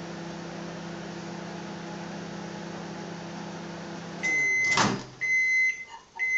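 DeLonghi microwave oven running with a steady hum through its last seconds of cooking. About four seconds in the hum stops, the door is pulled open with a clunk, and the oven starts its high beeps, repeating about once a second, as the timer runs out.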